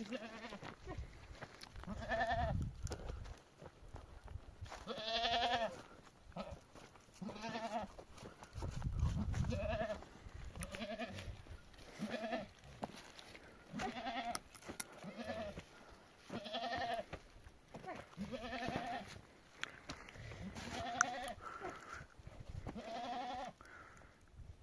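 Sheep bleating over and over, one short call every second or two.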